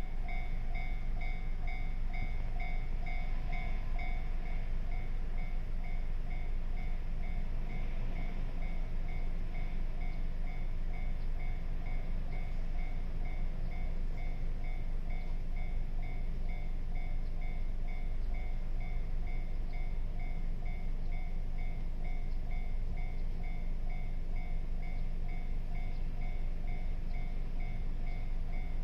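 Japanese railway level-crossing warning bell ringing in quick, evenly repeated electronic dings, over a steady low rumble from a local electric train going through the crossing.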